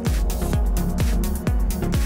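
Electronic dance music with a steady four-on-the-floor kick drum, about two beats a second, over sustained synth chords.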